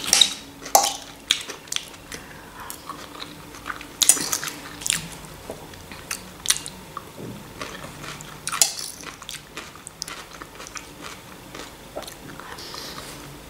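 Close-miked chewing and biting of fresh cucumber salad and pasta, with sharp crunches coming at irregular moments.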